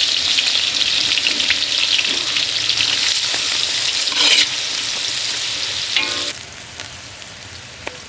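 Chopped onions sizzling loudly in hot oil while being stirred in the pan for fried rice. The sizzle drops away suddenly about six seconds in.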